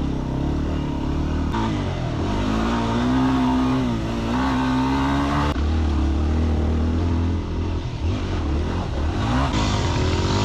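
Dirt bike engine revving up and down as it is ridden. Its pitch climbs and falls repeatedly, and the sound breaks off and resumes abruptly a few times.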